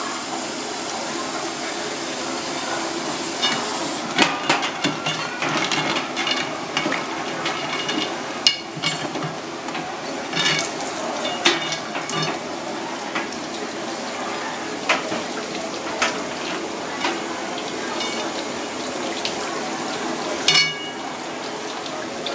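Tap water running and splashing over a coconut crab in a metal bowl in a stainless steel sink as it is scrubbed by hand, with scattered sharp clicks and knocks of the hard shell and legs against the bowl.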